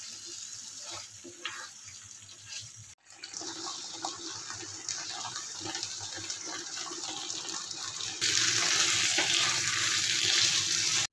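Chicken in creamy white gravy simmering and sizzling in a non-stick frying pan, a steady hiss with small crackles, with the light knocks of a wooden spatula stirring it. The sound breaks off briefly about three seconds in and comes back much louder from about eight seconds in.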